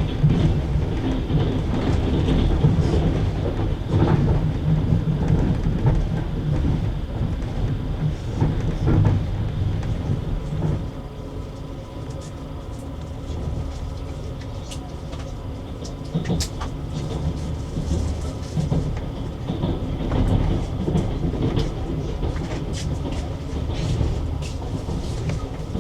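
Passenger train wheels knocking over the rail joints, heard from a carriage: a steady low rumble broken by repeated short knocks. The level drops about ten seconds in and the knocks go on.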